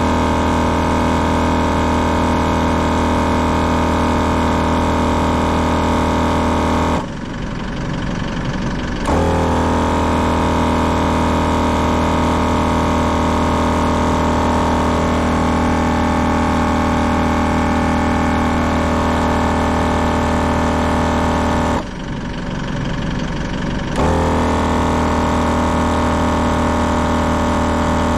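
Kings Thumper Max 12-volt digital air compressor running steadily as it inflates a car tyre. Its pump stops twice for about two seconds, about seven seconds in and again about fifteen seconds later, and restarts each time: the pauses where a digital compressor checks the tyre pressure. A car engine idles underneath.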